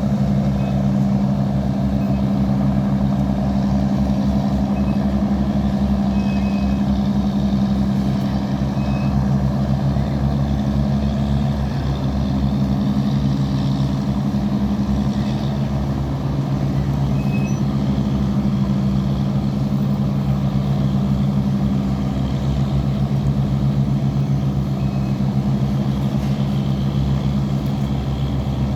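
Boat diesel engine running steadily, a constant low throbbing drone.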